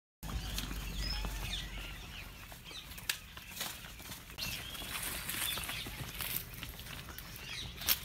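Birds chirping and calling, with scattered sharp clicks and steps on a dirt path, over a low rumble that is strongest in the first couple of seconds.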